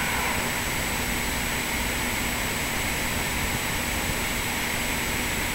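Steady mechanical hum and hiss, unchanging throughout, with a faint low hum and a thin high whine over it.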